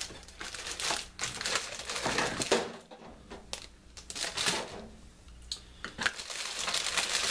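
Clear plastic bags crinkling as bagged plastic model sprues are lifted and shifted in a cardboard kit box, with light clicks of the plastic parts. The rustling dies down in the middle and picks up again near the end.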